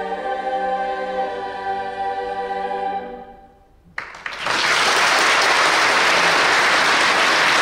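A high school choir holds a final chord that dies away about three seconds in; after a brief hush, loud applause breaks out and continues.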